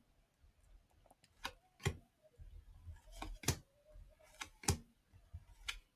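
Faint, scattered clicks and light snaps of trading cards being handled and flipped through by hand, about seven in six seconds.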